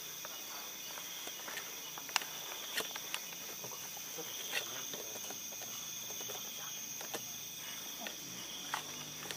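Crickets chirring steadily, with a few scattered sharp clicks and light footsteps of someone walking.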